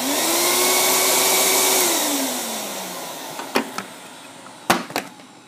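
Riccar 10-amp bagged vacuum's motor switched on, running at a steady whine for about two seconds, then switched off and winding down over about a second, run briefly to puff up the bag and judge how full it is. A few sharp clicks or knocks follow.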